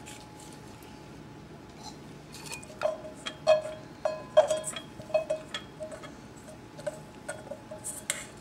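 A stainless steel mixing bowl knocking again and again against a metal fine-mesh sieve, each knock ringing briefly. The bowl is being tapped to drain the last of the custard mix through the sieve. The knocks are irregular and start about three seconds in.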